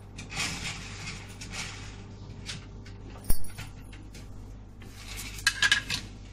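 Kitchen handling noises: rustling over a steady low hum, one sharp click a little past three seconds in, and a quick run of metallic clinks near the end.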